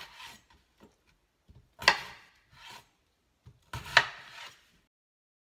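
Chef's knife cutting red potatoes into chunks on a cutting board: two sharp knocks of the blade striking the board about two seconds apart, each followed by a softer rub.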